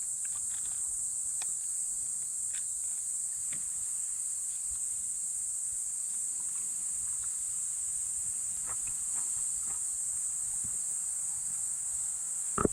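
Steady, unbroken high-pitched chorus of insects, with a few faint clicks over it.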